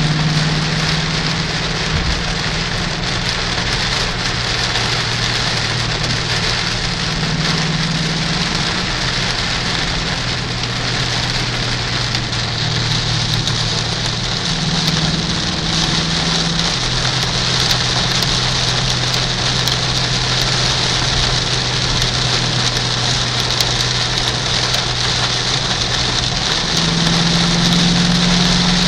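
Heavy rain hammering on a car's windshield and roof, heard from inside the cabin as a loud, steady hiss, with wet-road tyre noise. Under it runs the low drone of the Mustang Bullitt's 4.6-litre V8 at highway speed, shifting pitch about halfway through and again near the end.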